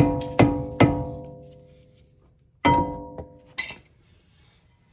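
A steel brake rotor struck three times in quick succession with a mallet, ringing like a bell after each blow as the ring dies away. It is hit again about 2.7 s in, followed by two lighter knocks. The blows are meant to break the rotor loose from the corrosion holding it to the hub.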